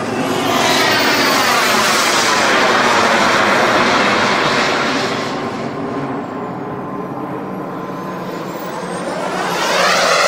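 Turbine engine of a Sebart Avanti S RC jet flying past: a loud jet rush with a high whine that swells about a second in, fades as the whine falls in pitch, and swells again near the end as the whine rises and the jet comes back.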